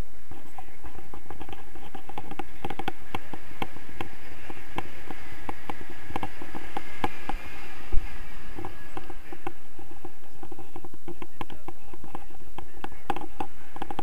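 Wind rushing over a hand-held action camera during a tandem paraglider flight, with steady scratchy clicking and rattling from the camera and its stick, and one sharp knock about eight seconds in.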